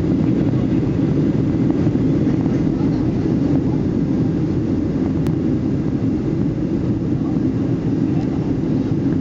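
Steady drone of a Boeing 737 airliner's jet engines and airflow, heard from inside the passenger cabin on approach, with no changes in pitch or level.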